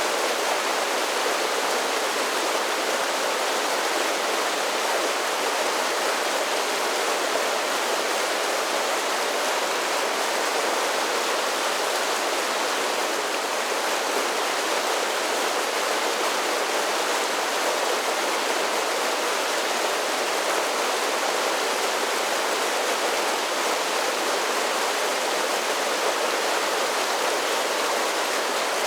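A mountain creek tumbling over a series of small falls: a steady, even rush of water with no change in level.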